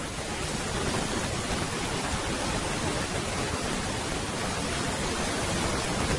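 Steady rushing noise, like heavy hiss or rain, spread evenly from low to high pitch and masking any speech.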